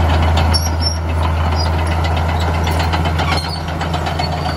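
Komatsu crawler bulldozer's diesel engine running steadily as the machine travels, with the steel tracks clanking and clicking throughout. The engine note drops slightly about half a second in.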